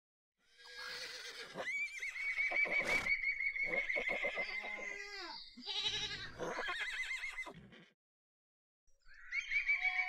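Griffon vultures calling with long, wavering squeals, several voices overlapping, in two bouts about a second apart. A single sharp click falls about three seconds in.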